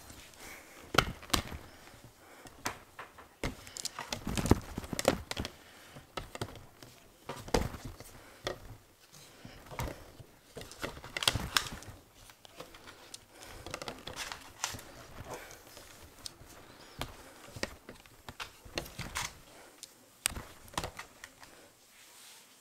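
Handling noise from a phone camera pressed against and moving over a cotton t-shirt: irregular knocks, clicks and fabric rustling, with the loudest knocks about a second in, around four to five seconds in, and near the middle.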